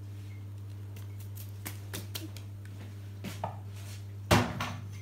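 Kitchen items knocking on a wooden tabletop: a few light clicks and taps, then one louder knock about four seconds in, over a steady low hum.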